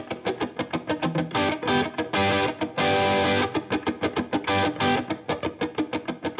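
Outro music: electric guitar playing fast repeated picked notes and chords with a distorted tone.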